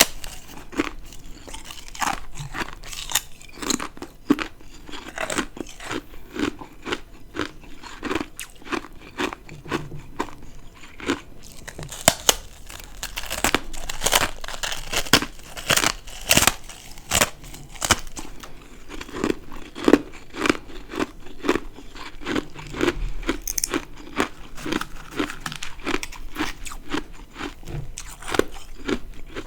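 Ice being bitten and chewed close to the microphone: a fast run of sharp, crisp crunches, thickest about halfway through.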